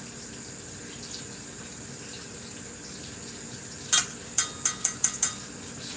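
Kitchen tap running steadily into a sink. About two-thirds of the way through comes a quick run of about six sharp clinks with a brief ring, like kitchenware knocking together.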